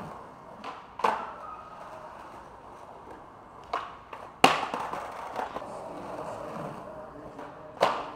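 Skateboard rolling, with about five sharp clacks of the board striking the ground as tricks are popped and landed. The loudest comes a little after four seconds in.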